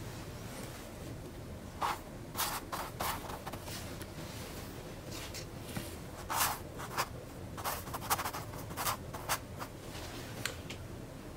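Paintbrush stroking and dabbing paint onto a stretched canvas: about a dozen short, scratchy strokes at uneven intervals, with pauses between them.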